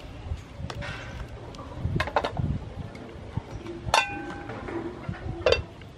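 A wooden spoon knocking and clinking against a stainless steel soup pot during stirring: several separate knocks, the loudest about four seconds in with a short metallic ring.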